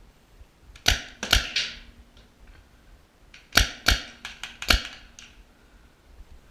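Magazine-fed paintball marker firing in sharp pops: three shots about a second in, then a quicker string of about six shots around the middle.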